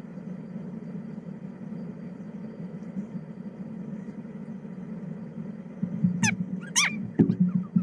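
A steady low hum throughout, and near the end an animal's two short high cries that slide in pitch, followed by a few soft knocks.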